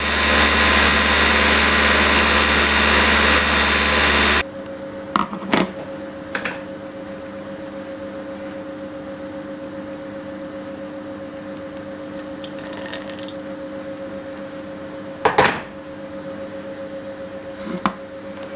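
Baby food maker's blender blade pureeing steamed carrots, running loud for about four seconds and cutting off suddenly. After it, a steady low hum with a few sharp clicks and knocks as the plastic jug is handled.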